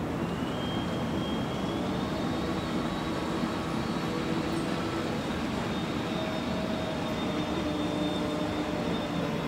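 Inland motor tanker passing, its diesel engine running with a steady rumble.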